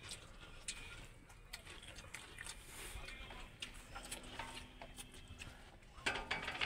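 Faint scattered clicks and light taps of people eating with their hands from steel plates, over a low hum, with a louder patch near the end.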